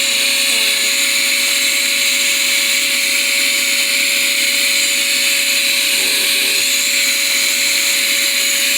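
Small vacuum used as a beetle vac, running steadily with a constant motor whine and rushing air while it sucks small hive beetles off a beehive.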